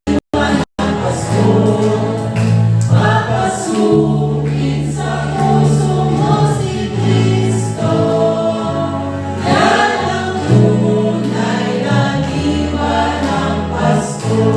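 Choir singing a Christmas carol over instrumental accompaniment, with held bass notes changing every couple of seconds. The sound cuts out for an instant twice right at the start.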